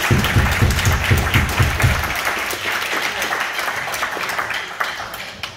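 Small audience applauding, heaviest in the first two seconds and dying away toward the end.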